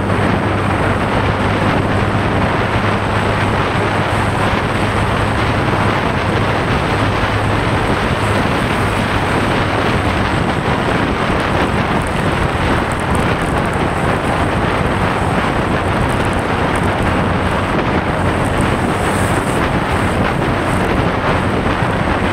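Wind rushing over the microphone of a motorcycle riding at highway speed, with a steady low engine hum underneath.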